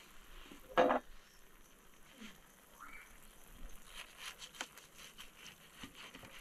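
Knife and fork cutting through a baked stuffed cabbage in a glass baking dish: soft squelchy cutting with a cluster of small clicks and ticks from the cutlery against the glass about four seconds in. A short, louder sound stands out about a second in.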